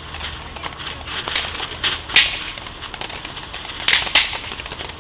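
Consumer firework going off with a series of sharp cracks and pops. The loudest comes about two seconds in, and a pair follows close together near four seconds.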